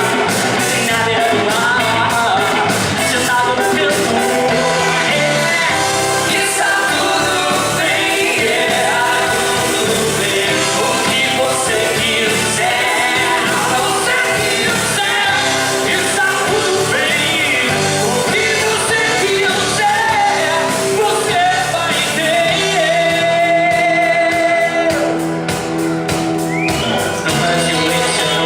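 A band playing an upbeat song with a lead singer over a steady beat.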